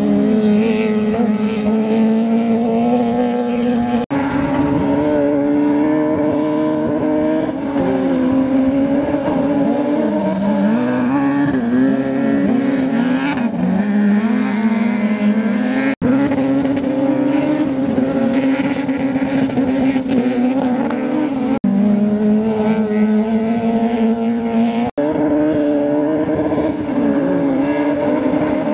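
Off-road racing car engines running at high revs, the pitch dipping and climbing with throttle lifts and gear changes; the sound jumps abruptly at several edits.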